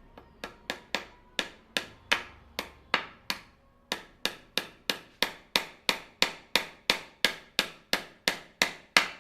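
A hammer striking a wooden chair being repaired: steady blows, about three a second, each with a short ringing tail. There is a brief pause a few seconds in, and the blows grow louder near the end.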